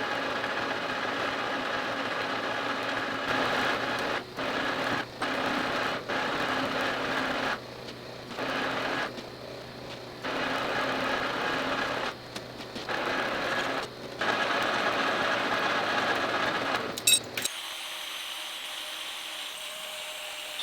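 Metal lathe running and turning down a steel part, a steady machine hum whose level drops in and out several times. Near the end a sharp click comes and the machine stops, leaving a faint background hum.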